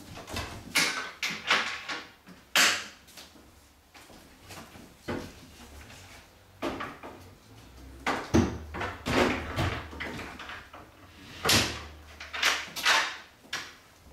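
A door being handled and shut: irregular knocks and clatter in clusters, the loudest coming a few seconds in, again past the middle, and about three-quarters through.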